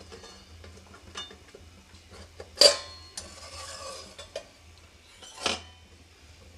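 Stainless-steel tiffin-box lid being worked off and handled with a metal utensil over a steaming aluminium kadai: light scrapes and ticks of metal on metal, a loud ringing clang about two and a half seconds in, and another clank near the end. A faint low hum runs underneath.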